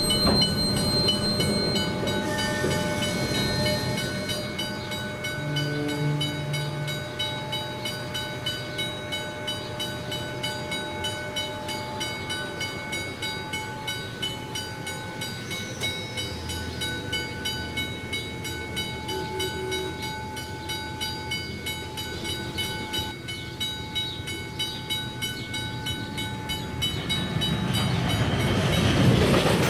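Grain hopper wagons rolling through a level crossing, wheels clacking rhythmically over the rail joints, with the crossing's bell ringing steadily. The wagon noise grows louder near the end.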